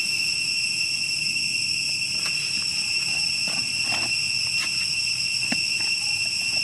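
Steady, high-pitched drone of insects, with a few faint short chirps or clicks here and there.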